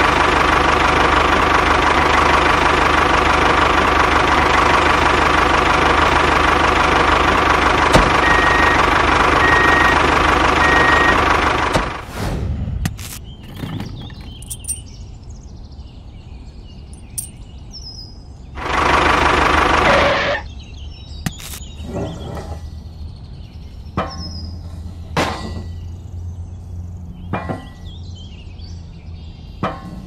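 A toy tractor's small electric motor and gears whirring steadily for about twelve seconds, then cutting off suddenly. After that come small clicks and knocks of parts being handled and fitted, with a second short burst of the motor a few seconds later.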